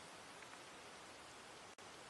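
Faint, steady rain hiss: an even wash of noise with a few faint drop ticks. It cuts out for an instant near the end.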